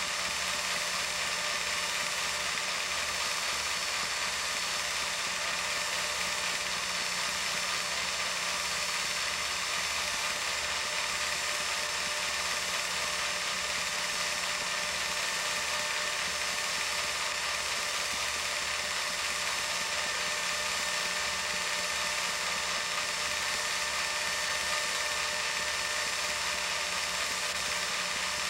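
Film projector running: a steady mechanical whir and clatter with a constant hum and a regular low pulsing from the mechanism.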